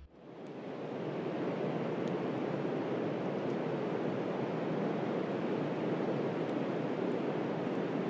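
A steady rushing noise with no tones or rhythm, fading in over the first second and then holding even: a natural ambience bed like wind or rushing water.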